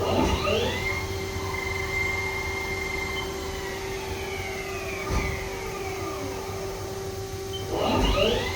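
Haas ST40L CNC lathe spindle whining as it speeds up, holds speed, then winds back down, and speeds up again near the end, over the machine's steady hum. A short knock about five seconds in.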